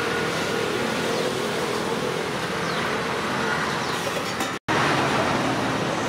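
Steady road traffic noise. It drops out for an instant a little after halfway through.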